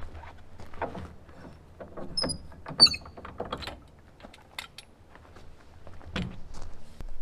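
Irregular knocks and clatter of hands-on work, with a couple of brief high squeaks about two to three seconds in.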